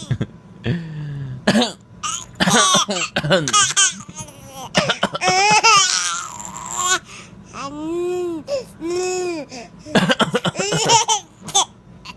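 An adult coughing deliberately, again and again, and a baby girl laughing hard in high-pitched giggles after the coughs.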